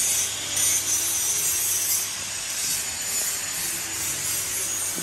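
Workshop machine noise: a steady rasping hiss over a low, even hum.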